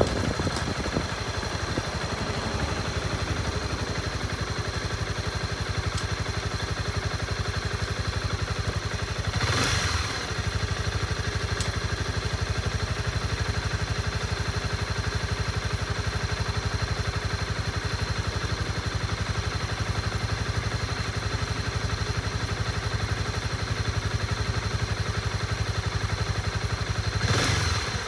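Honda CB250R's single-cylinder engine idling steadily while the bike waits at a stop. A brief whoosh, such as a passing vehicle, comes about ten seconds in.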